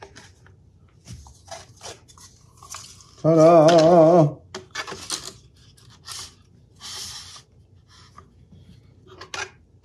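A man sings out a drawn-out "Ta-da!" with a wavering vibrato about three seconds in, the loudest sound here. Around it come faint, scattered clicks and rubbing of parts being handled and fitted together.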